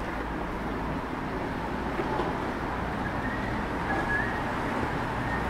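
Steady city street traffic noise, with a faint high thin whine about three to four seconds in.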